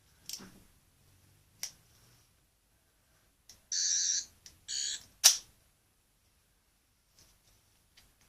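12th Doctor sonic screwdriver toy's electronic sound effect: two short high buzzing tones about four and five seconds in, followed by a sharp click, with a few light plastic handling clicks earlier.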